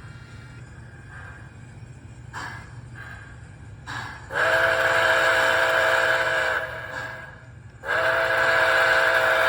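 Sound system of an MTH model Nickel Plate Road steam locomotive blowing its steam whistle: two long blasts of about two seconds each, with a steady hiss of steam under the whistle tone. A low steady hum runs beneath.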